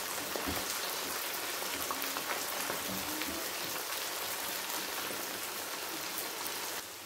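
Beef chunks sizzling as they fry in oil with browned onions in a non-stick wok, stirred with a spatula: a steady, even hiss that drops off a little just before the end. This is the start of the bhunai, frying the pressure-cooked beef.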